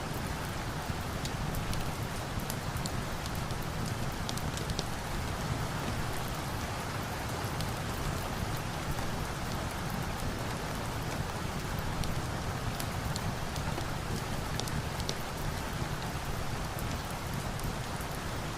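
Steady rain with a low rumble beneath it, mixed with the crackle of a wood fire: many small sharp pops and snaps scattered throughout.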